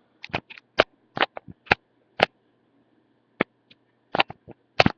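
A string of irregular sharp clicks and light taps, about a dozen, bunched in the first two seconds and again near the end with a quiet gap between: handling noises close to the microphone.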